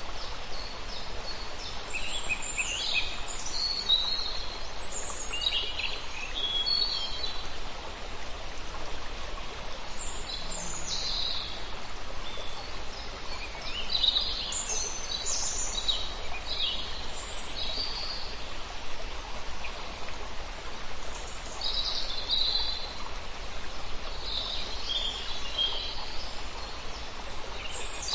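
Birds chirping and singing in short, scattered phrases over a steady background hiss.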